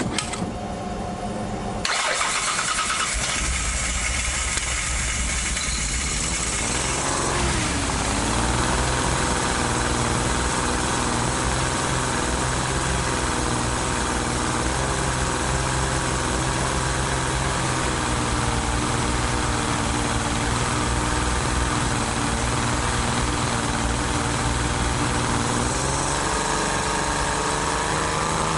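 Datsun 240Z's L-series straight-six, fitted with a homemade crossflow head, starting after sitting unused. It is cranked, catches about two seconds in and runs unevenly, and its speed dips and recovers around seven seconds. It then settles into a steady idle that rises slightly near the end.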